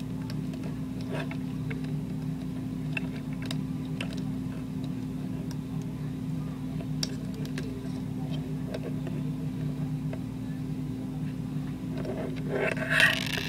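Plastic Lego Bionicle parts clicking and knocking lightly while the figure is handled and re-posed, a scatter of small irregular clicks over a steady low hum.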